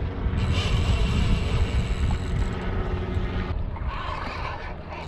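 Steady engine drone over a heavy low wind rumble on the microphone; the engine's tone drops away about three and a half seconds in.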